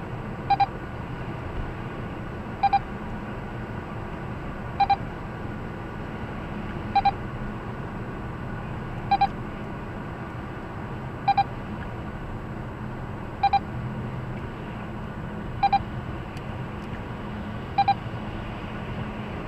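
Neoline X-COP 9000 radar detector giving a short double beep about every two seconds, nine times, over steady road noise inside the cabin of a moving car. This is its alert while the car is inside an Avtodoria average-speed camera section.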